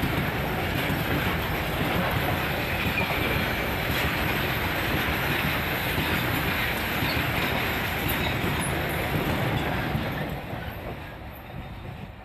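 A freight train of covered wagons rolling past close by, with the steady rumble of its wheels on the rails. About ten seconds in, the sound starts to fade as the last vehicle passes and draws away.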